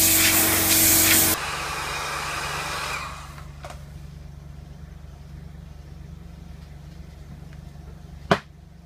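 Compressed-air blow gun blasting air at a bumper with a loud hiss that cuts off about a second and a half in. A weaker hiss then fades out over the next second or so, leaving a steady low hum. Near the end there is a single sharp knock.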